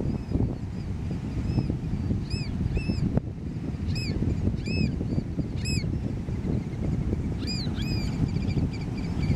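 American oystercatchers giving short, loud piping whistles, each note rising then falling, in spaced pairs and singles through the middle (about seven loud notes, with fainter ones near the start and end). A steady rumble of wind on the microphone runs underneath.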